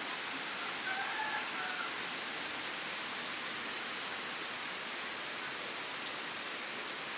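Steady rain falling on garden plants and ground, an even hiss.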